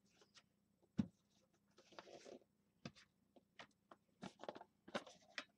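Hands handling a metal card tin and working its lid off: faint scattered clicks and taps, with one sharper knock about a second in and a brief rustle around two seconds in.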